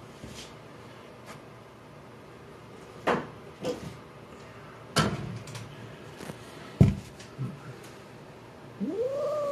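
A long-haired tabby cat starts a low, drawn-out yowl near the end, rising in pitch and then held steady, as a deshedding brush is brought up to her. Before it there are a few soft knocks and clicks of handling, the loudest a single thump in the middle.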